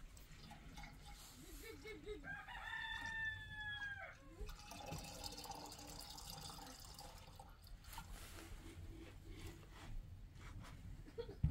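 A rooster crowing once: a single call of about two seconds that drops in pitch at the end.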